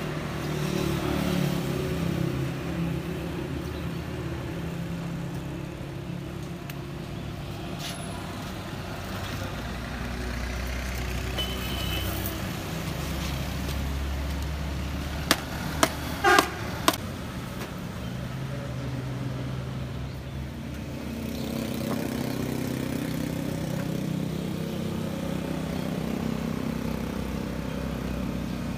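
Road traffic passing, with vehicle engines humming as they come and go. About halfway through there is a quick run of a few sharp clacks.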